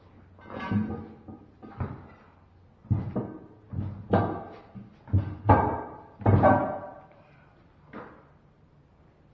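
A heavy truck tire being dropped and pushed down onto a steel wheel rim on a concrete floor: about ten thumps and bangs over some seven seconds, several with a brief metallic ring.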